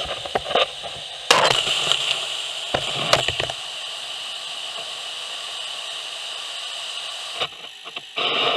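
Gutter vacuum running, heard as a steady rushing hiss down its carbon-fibre pole and hose. In the first few seconds there are knocks and a louder rush as the pole nozzle is brought onto the gutter, and a short louder rush comes near the end.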